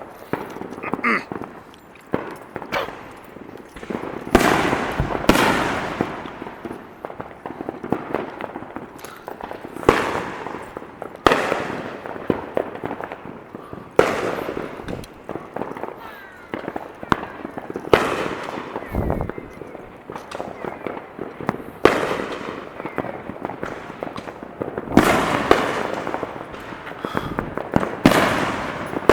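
Fireworks exploding: a run of loud bangs and booms at irregular intervals, a dozen or so, each one ringing out for a moment afterwards.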